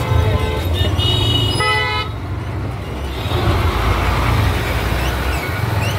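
Vehicle horns honking in street traffic: several short honks of different pitches in the first two seconds, the last the loudest. Under them is the steady low rumble of the motorcycle riding.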